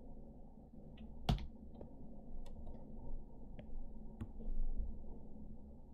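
A few scattered clicks from a computer keyboard and mouse, the loudest about a second in, over low steady background noise.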